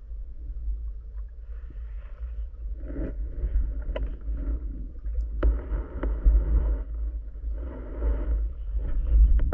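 Underwater sound heard through a diving camera's housing: a steady low rumble of water moving past as the freediver swims, with swishing surges every second or two and a few sharp clicks.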